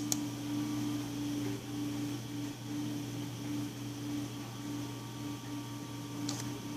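Steady low electrical hum with a faint pulsing tone, and a single sharp mouse click right at the start, followed by a couple of faint clicks near the end.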